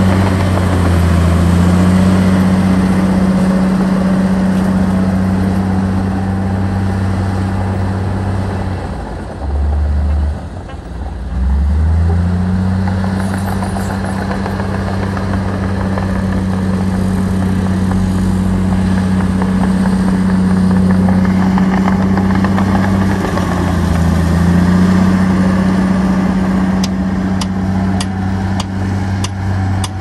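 Heavy earthmoving machine's diesel engine running hard and steadily. Its pitch dips briefly about a third of the way in and then picks back up. A run of sharp metallic clicks comes near the end.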